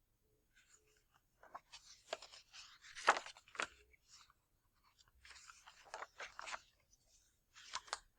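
Rustling and crinkling of a picture book being handled, its pages turned, in irregular bursts.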